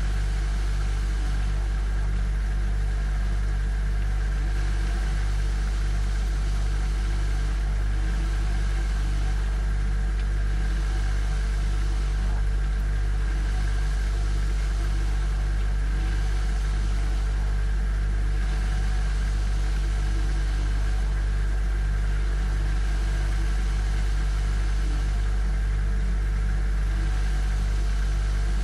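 Refrigerator running, heard from inside the fridge: a steady low electric hum with a faint even pulsing in its lower tones.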